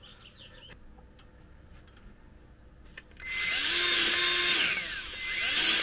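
Battery-powered grease gun pumping grease into a front-axle grease fitting. Its motor starts about three seconds in, rising in pitch, running steadily for over a second and winding down. It starts up again just before the end.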